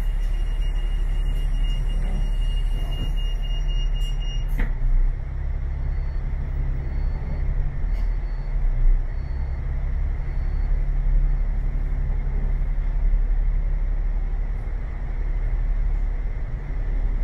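Steady low rumble of a bus's engine and running gear, heard from inside the moving bus, with a single click about four and a half seconds in.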